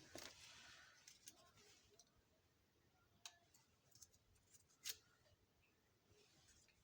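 Faint rustling and a scattering of sharp clicks from small plastic toy kitchen pieces being handled, with the loudest click a little before 5 seconds in.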